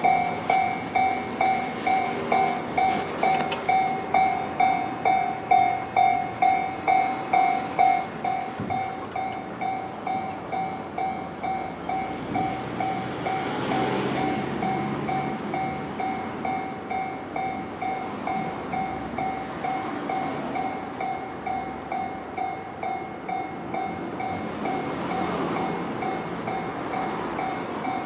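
Japanese railway level-crossing alarm ringing: an electronic bell tone struck over and over, about twice a second. It drops somewhat in level about eight seconds in and keeps ringing.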